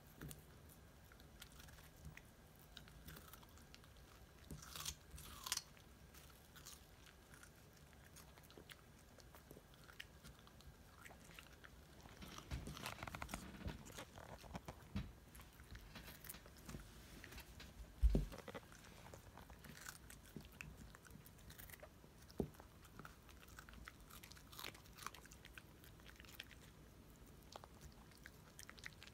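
Schnauzer dog chewing and crunching a raw red radish: a string of faint, irregular crunches and bites, with one louder dull thump about two-thirds of the way through.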